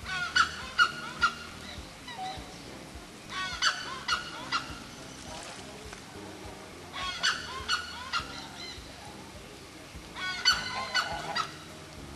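Waterfowl honking in four short bouts of several calls each, spaced a few seconds apart.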